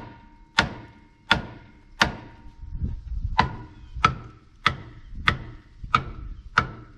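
Hammer blows on the steel frame rail of a 1994 Ford Ranger held under tension by a chain frame puller, tapping the bend to help it straighten. About nine sharp strikes roughly two-thirds of a second apart, with a short pause after the third, each with a brief metallic ring.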